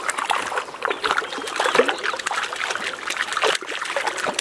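Irregular splashing and trickling water as a hooked cutthroat trout thrashes at the surface while it is landed.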